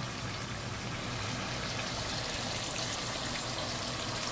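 Seasoned chicken pieces sizzling steadily in oil in an aluminium pot as they brown.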